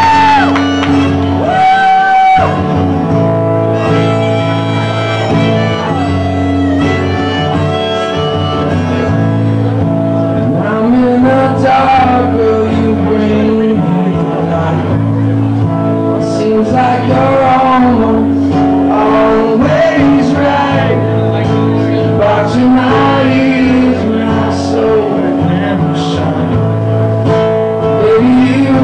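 Solo live performance of an acoustic guitar played with a man singing over it for most of the stretch.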